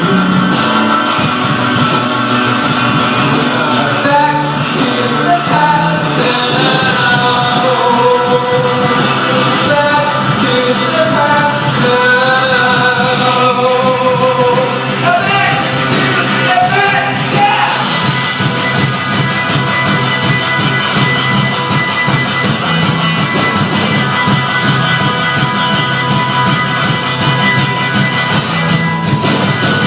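Rock music with singing over a steady drum beat; the sung melody stands out in the middle stretch, then the instruments carry on.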